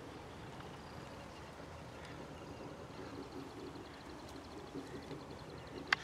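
Steady outdoor background noise, with a faint fast high ticking from about halfway through and one sharp click near the end.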